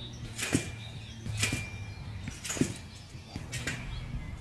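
Trampoline bouncing: four thuds with a whoosh, about a second apart.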